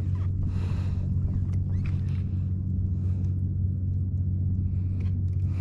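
Steady low hum of a kayak's Watersnake electric trolling motor running, with a few faint ticks over it.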